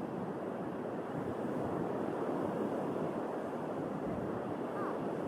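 Sea surf washing onto the beach in a steady rush, mixed with wind buffeting the microphone.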